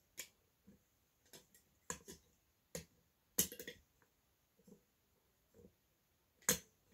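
Handling noise from a salvaged ceiling fan motor and its stem: irregular sharp clicks and knocks, the loudest about three and a half seconds in and near the end, with no motor running.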